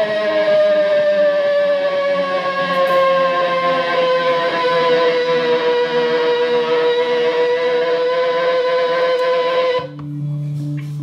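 Electric guitar holding one long sustained note that slowly sinks in pitch. The note breaks off about ten seconds in and gives way to lower, steady notes.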